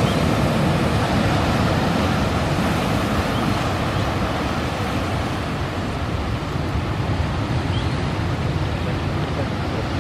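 Steady rush of surf washing among shoreline boulders, with wind noise on the microphone.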